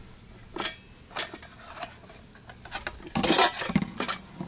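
Nesting camping cookware being unpacked: blue plastic bowls and cups lifted out of a stainless-steel pot and set down. A few separate clicks and knocks, then a quicker clatter in the last second and a half.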